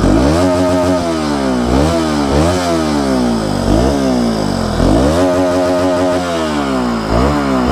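Bajaj Pulsar RS200's single-cylinder engine idling and revved in about six quick throttle blips, each rising and falling back to idle. The exhaust has its stock bend pipe refitted in place of a louder pipe, which the owner says now gives a much quieter, normal sound.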